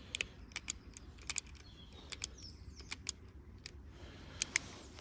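A string of small, irregular metallic clicks from steel BBs being loaded into a CO2 pellet revolver's shells and the shells being handled.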